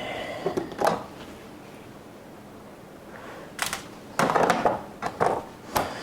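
Clicks and knocks from handling a bean-to-cup coffee machine as it is shifted into place on the worktop: one knock about a second in, then a quick run of knocks and clicks over the last couple of seconds.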